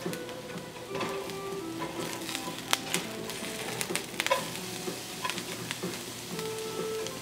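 Chopped ginger sizzling in hot oil in a ceramic-coated wok, with a silicone spatula stirring and scraping it. A few sharp taps of the spatula against the pan fall around the middle.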